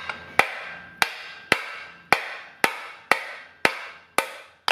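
Hammer blows on a socket held against a Honda Civic trailing arm bushing, driving the old bushing out of the trailing arm. The strikes come steadily, about two a second, each with a short metallic ring.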